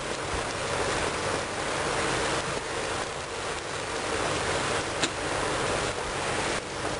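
A lit gas grill hissing steadily as chicken wings cook on the grate, with one brief click about five seconds in.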